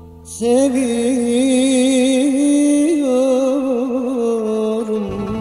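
Turkish alaturka song: after a brief pause, a singer enters about half a second in and holds one long ornamented note with wavering pitch over a low accompaniment, which drops out near the end.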